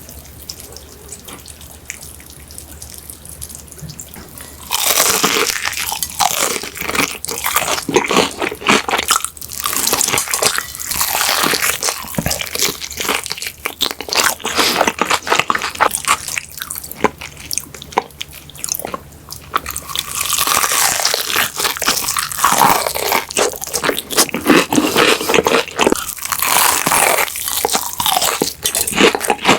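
Crunchy bites into Korean-style deep-fried chicken with a crisp batter coating, followed by chewing, close to the microphone. It starts about five seconds in and goes on in repeated bursts.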